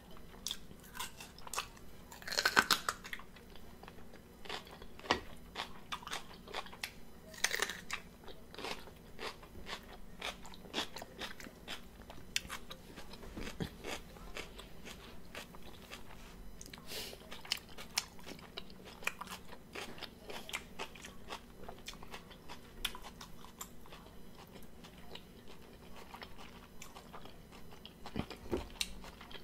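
Close-miked crunchy biting and chewing of raw vegetables, a red sweet pepper and cucumber slices, with many short crisp crunches. The two loudest bites come about two and a half and seven and a half seconds in.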